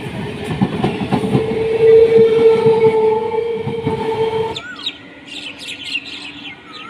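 Electric multiple-unit local train passing close along the platform at speed, its wheels clattering rapidly over the rail joints, with a steady tone over the clatter. About two-thirds of the way in it cuts off abruptly to a much quieter station platform with short high chirps.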